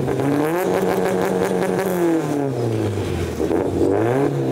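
Car engine with a loud exhaust revved up over about a second, held high, then let fall back toward idle, followed by a short quick blip of the throttle near the end.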